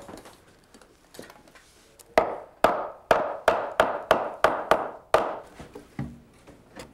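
Hammer blows on a laminated wood beam ply, about nine sharp knocks at roughly three a second, knocking the ply into place against the others.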